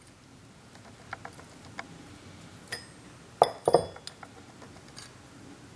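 Metal synchronizer ring pieces from a T56 manual gearbox clinking against each other and the gear as they are handled: a few light clicks, then two sharper clinks about three and a half seconds in.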